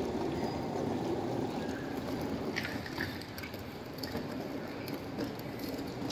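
A steady low rumble with a few light clicks a little before the middle, easing slightly after that.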